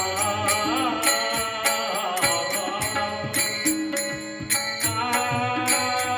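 Marathi devotional abhang music in bhajan style: a melodic line over a steady, evenly repeating percussion beat.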